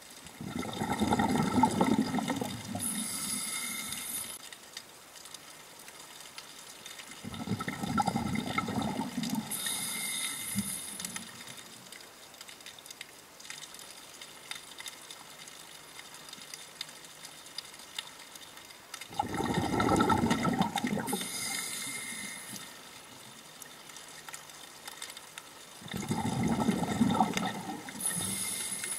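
Scuba diver breathing through a regulator, heard underwater: four rushes of exhaled bubbles, several seconds apart, each ending in a short hiss of the regulator on the next breath in.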